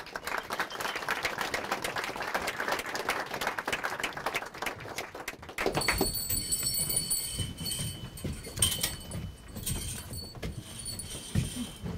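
Audience applauding for about six seconds. Then a hanging bedsheet curtain is pulled open, with high metallic jangling and scraping.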